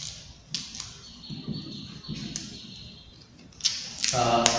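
Marker pen scratching and squeaking on a whiteboard as a word is written, with a few sharp taps of the pen tip. There is a thin high squeak held for about two seconds, and a short louder pitched sound near the end.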